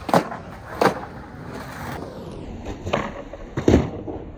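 Skateboard being ollied up onto a concrete loading-dock ledge: four sharp clacks of the tail popping and the wheels and deck landing on concrete.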